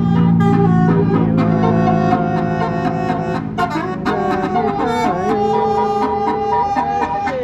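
A bus's basuri melodic horn playing a tune in held, reedy notes that step and slide between pitches, over the low rumble of the bus engine.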